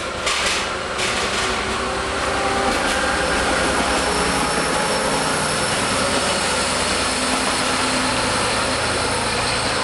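DE10 diesel-hydraulic locomotive running light, its V12 diesel engine working under power as it pulls away and gathers speed. The engine note is loud and steady throughout, with a few short sharp clicks in the first second.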